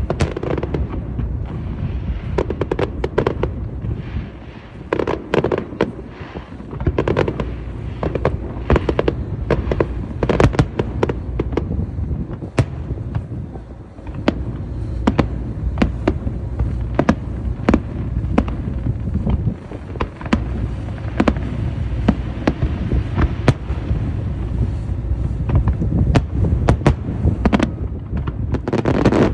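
Aerial fireworks display: a rapid run of sharp cracks and booms over a continuous low rumble of bursting shells, easing briefly a few times before picking up again.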